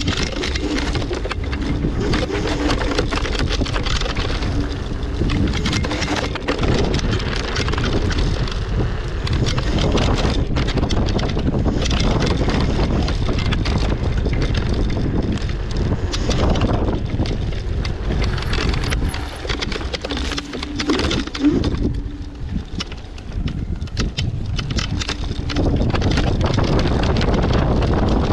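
Nerpa off-road vehicle driving over rough ground, its engine running under load, with wind buffeting the microphone. It eases off briefly about three-quarters of the way through, then picks up again.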